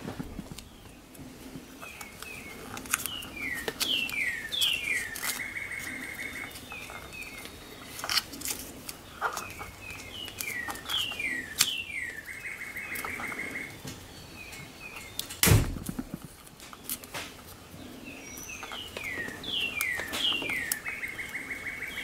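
A songbird repeats the same song three times, each a run of quick falling chirps ending in a fast trill. Small clicks and rustles of hands taping up wiring sound throughout, with one loud thump about two-thirds of the way through.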